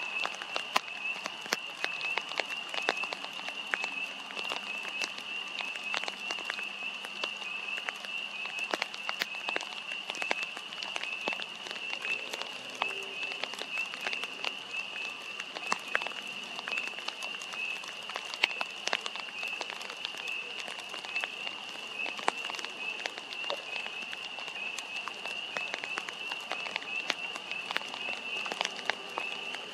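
Chorus of frogs: a steady, high-pitched trilling that runs without a break. Scattered sharp ticks of raindrops sound over it.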